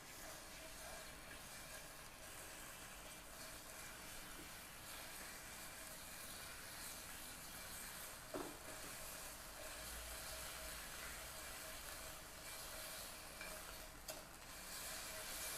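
A piece of marinated pork searing in garlic-and-shallot oil in a nonstick frying pan: a steady, soft sizzle as the meat browns. A sharp tap about eight seconds in and a smaller one near the end.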